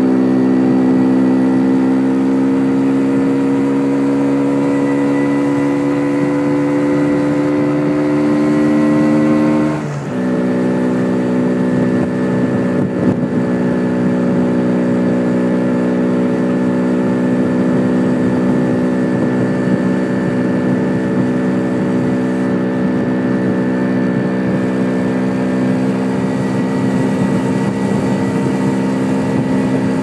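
MZ ETZ 250's single-cylinder two-stroke engine pulling under way, its note rising slowly for about ten seconds, then dropping suddenly with a brief dip in level as the rider shifts up a gear, then running steady. The owner says the engine was running a bit lean on too small a main jet. Wind noise on the microphone underneath.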